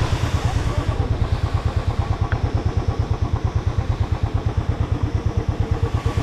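Royal Enfield motorcycle engine running at low revs, a steady thump of about seven beats a second.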